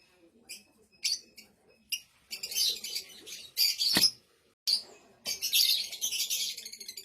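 Fischer's lovebird chattering: a few short high chirps, then several dense runs of shrill chatter. A single sharp click falls about four seconds in.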